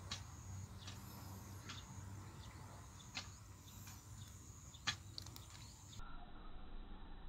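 Faint outdoor field ambience: a steady high thin whine and a low hum, with scattered short clicks, the sharpest about five seconds in. Near the end the high sounds drop out and it turns duller.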